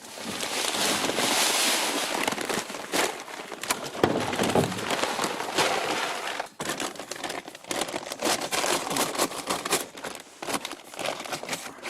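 Bag being handled, crinkling and rustling with many small crackles.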